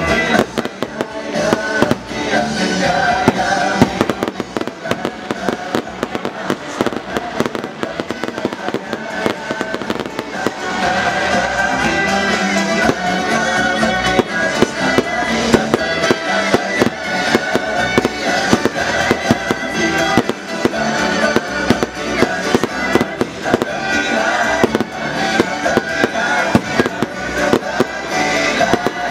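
Fireworks exploding in quick, dense succession, bangs and crackles overlapping, with music playing alongside.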